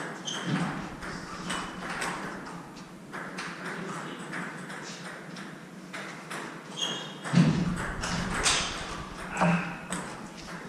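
Table tennis rally: the ball clicks off the paddles and bounces on the table in quick irregular taps, with sneakers squeaking and thudding on the wooden court floor. The heaviest thud comes about seven and a half seconds in. The hard walls of the squash court make it echo.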